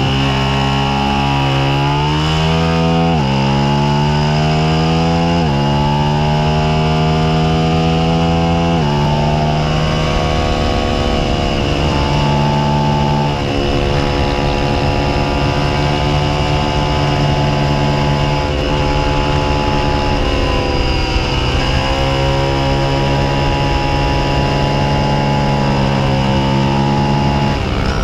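Suzuki SV650's 645 cc V-twin engine under hard acceleration on track, revs climbing and dropping sharply at three upshifts in the first nine seconds. It is then held at high revs along a straight, with wind rush, and the revs fall near the end as it slows.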